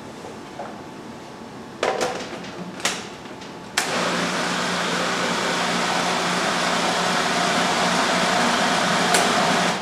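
Waring LiquiLock 3.5-quart food processor, its 1-horsepower motor switched on after a couple of knocks and running steadily for about six seconds with an even hum, puréeing plum tomatoes, garlic and basil into a sauce in a bowl filled to the top. It stops abruptly at the end.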